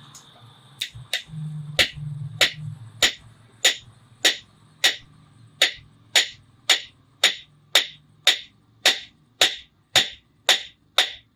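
Hammer blows on iron on an anvil, forging: about twenty strikes at a steady rhythm of roughly two a second, each with a short metallic ring.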